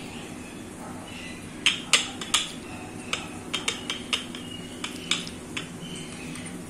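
Wooden rolling pin knocking and clacking against the rolling board while a stuffed paratha is rolled out. About a dozen sharp, irregular knocks come between about two and five and a half seconds in, over a faint steady low hum.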